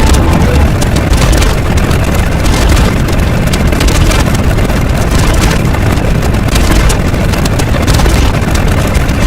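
A loud, steady, harsh rumbling noise with a heavy deep end and no clear pitch.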